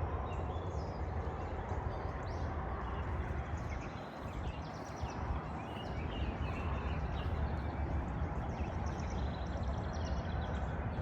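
Birds chirping over a steady low rumble of outdoor background noise.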